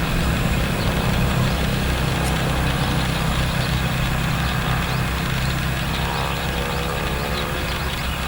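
Roadside ambience with traffic: a steady low rumble throughout, and a passing vehicle's engine hum that comes up about six seconds in, under faint chirps of birds and insects.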